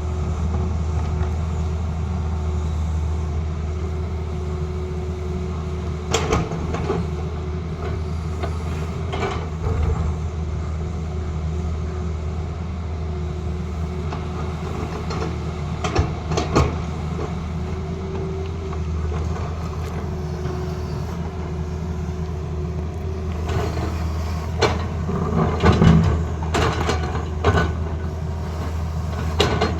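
Tata Hitachi excavator's diesel engine running steadily, with scattered sharp knocks and clanks, most frequent near the end.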